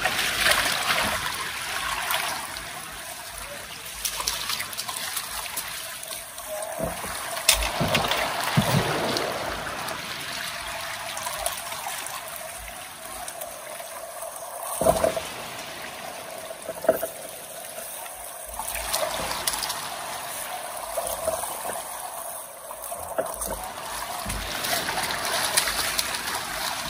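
River water running and splashing steadily, with a few short knocks scattered through it.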